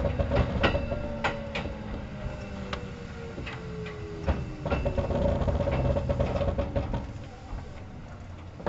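Kintetsu 1810 series electric train heard from inside the car: the traction motor and gear whine slides steadily down in pitch as the train slows. Wheels click over rail joints under a constant low running rumble.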